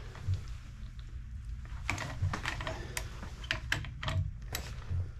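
Irregular light clicks and taps of hand tools and fork parts being handled, a few each second, over a low steady hum.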